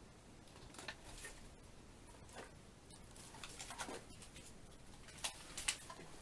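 Faint footsteps crunching and scuffing over a debris-strewn floor, heard as irregular scattered clicks and crackles. The loudest come a little past five seconds in.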